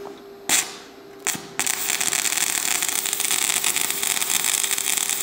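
A stick (manual arc) welding electrode being struck on a metal plate. There are two brief crackles as the electrode is scratched across the plate, then about a second and a half in the arc catches and burns with a continuous crackle.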